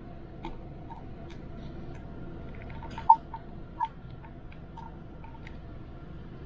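Steady low hum on a ship's bridge, with a scattering of light, irregular clicks and ticks, the sharpest about three seconds in.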